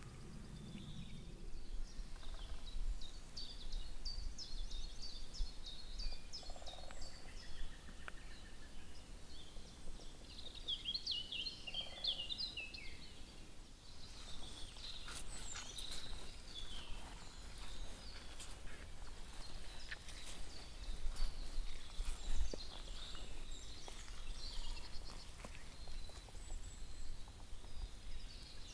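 Several small songbirds singing and chirping, with a run of notes falling in pitch about ten seconds in, over a faint low rumble.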